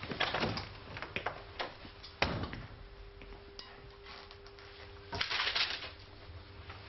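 Classroom room sound with scattered small clicks and knocks, then a rustle of paper about five seconds in as a stack of sheets is handled.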